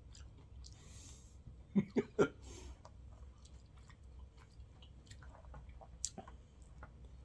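Close-up chewing and wet mouth sounds of someone eating sushi, with small clicks throughout. There is a brief breathy hiss about a second in and three short vocal sounds around two seconds in.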